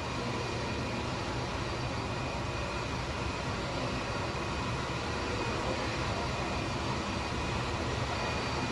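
Narrow-body twin-jet airliner's engines idling as it taxis slowly in to the gate: a steady rushing hum with a thin high whine, getting slightly louder over the last few seconds.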